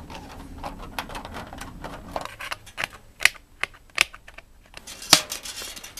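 Hand snips cutting along a circle in thin sheet metal: irregular sharp snipping clicks, a few much louder ones in the second half.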